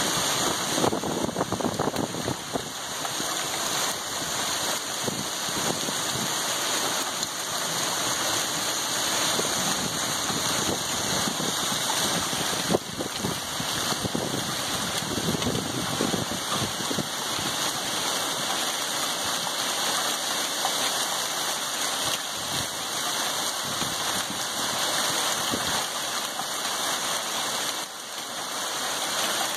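A hailstorm with heavy rain, hail and rain pelting a lawn, road and pavement. It is a steady hiss dense with many small ticks of hailstones landing, with one sharper hit a little under halfway through.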